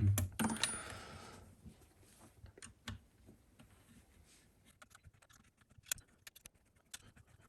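Faint, scattered clicks and light handling noise from an Allen key working the mounting screws of a CPU water block, with a short rustle in the first second and near silence between the clicks.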